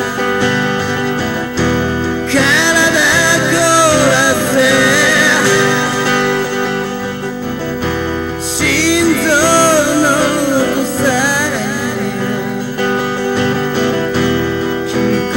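Acoustic ballad: a voice singing over acoustic guitar, with sung phrases starting about two seconds in and again past the halfway point.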